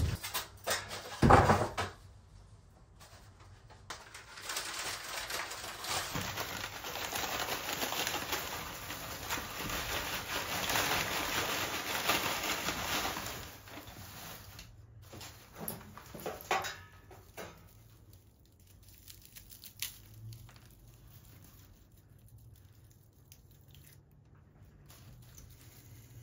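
A paper bag crinkles and rustles at first. Then comes a long stretch of dry crackling and rustling as dry white fir cones are handled in a plastic tray. It thins out to a few light clicks and rustles as single cones are picked over.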